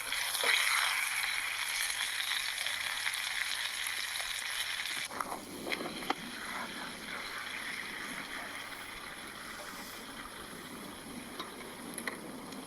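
Butter and steak sizzling in a frying pan, a steady hiss that changes abruptly about five seconds in to a duller, lower sizzle.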